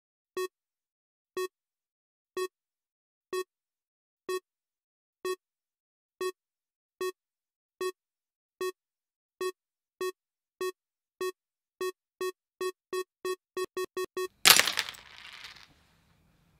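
About two dozen identical short synthesized beeps, one a second at first, then coming faster and faster into a quick run, ending about 14.5 seconds in with a loud noisy burst that fades over a second or so.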